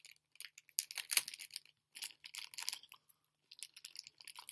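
Thin clear plastic bag crinkling and crackling in the hands as it is pulled and torn at to get the part out, in irregular bursts.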